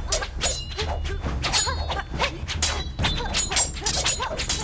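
Film sword-fight sound effects: steel blades clashing many times in quick succession, each strike with a short metallic ring, over a steady low rumble.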